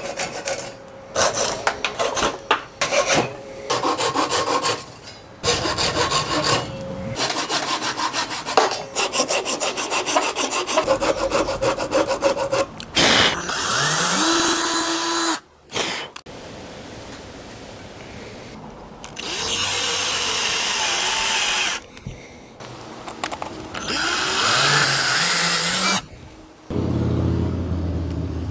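Hand saw cutting through a tree-fork branch with back-and-forth strokes, in several bouts separated by short pauses. The strokes come quickest in the first half.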